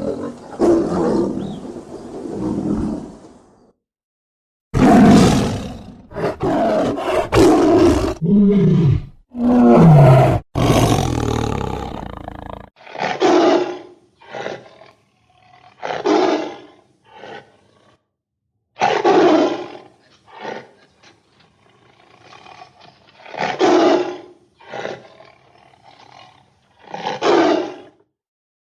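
Tigers roaring and growling: loud calls with short breaks, the heaviest about five to twelve seconds in, some falling in pitch, then a string of shorter calls every second or two.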